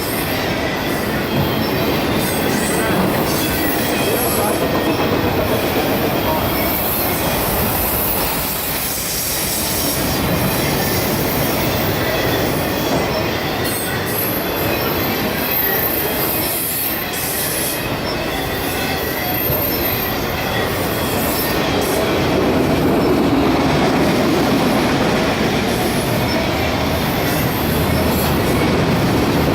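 CSX freight train Q276 rolling past at close range: a steady, loud rumble and clatter of steel wheels on rail, with a few brief high-pitched wheel squeals around the middle.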